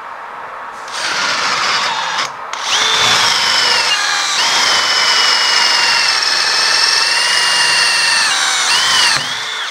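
Cordless drill with an 8 mm bit boring into a steel clutch cover, taking metal off to bring it into balance. A short first run and a brief stop, then a long steady run with a high whine from the bit cutting, which rises again just before the drill stops.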